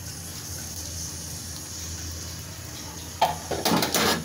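Sliced onions sizzling in hot oil in a metal karai, a steady hiss. About three seconds in, a few louder, rougher clattering noises break in over it.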